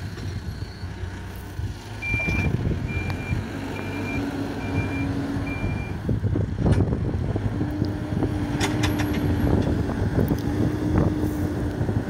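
Hidromek 102B backhoe loader's diesel engine running steadily while the machine moves about. Its reversing alarm beeps five times, evenly spaced, from about two seconds in. In the second half the engine note steadies higher and there are a few metallic clanks.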